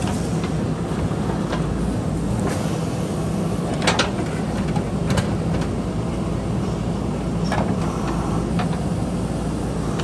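JCB backhoe loader's diesel engine running steadily under load while the backhoe bucket digs into rocky earth. Scattered sharp knocks and scrapes of the steel bucket against stones come through, the loudest about four seconds in.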